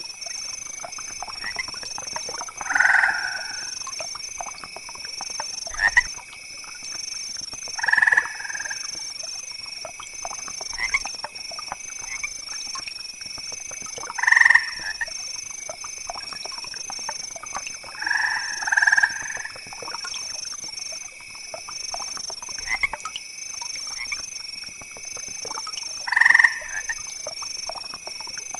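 Wetland animal chorus: a steady high-pitched trilling that carries on throughout, with a louder call standing out every few seconds.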